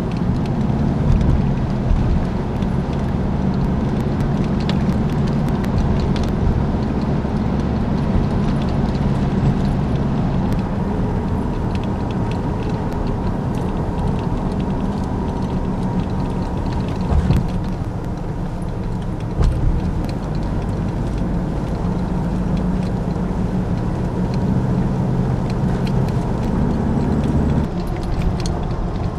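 Motor vehicle engine running steadily, its low drone shifting in pitch now and then, with a couple of brief knocks partway through.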